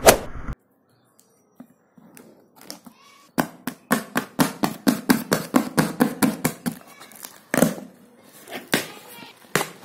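A brief burst of riding noise cuts off half a second in. Then a sharp point scrapes and slits the packing tape of a cardboard shipping box in a quick run of scratchy strokes, about four or five a second, followed by a few louder scrapes and rustles as hands work the cardboard open.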